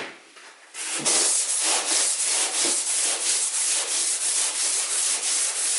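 Hand sanding block with 80-grit paper being pushed back and forth over body filler on a van door panel: a steady rasping scrape in about three strokes a second, starting about a second in. A single knock at the very start.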